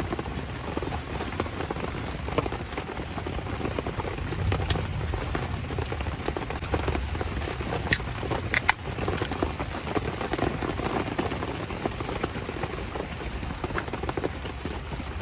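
Steady rain pattering on surfaces, with a few sharp clicks, three of them close together about halfway through.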